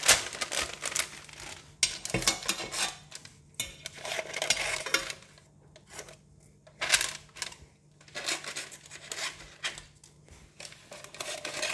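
Baking paper crinkling and rustling as it is trimmed with kitchen shears and pressed into a stainless steel pan, in irregular bursts with light clinks of metal.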